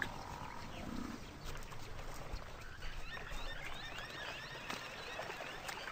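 Faint ambience of a Cape buffalo herd at a waterhole, with faint high chirps from about halfway on.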